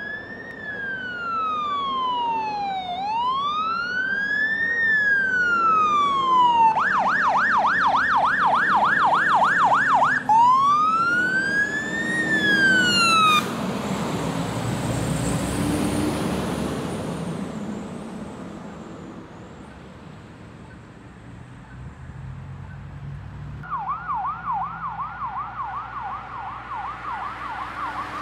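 Fire engine's electronic siren wailing, rising and falling about every four seconds, switching to a fast yelp for a few seconds and back to wail. The siren cuts off suddenly and the engine passes close with a loud rush of engine and tyre noise that fades away. Near the end a fainter siren starts up on yelp.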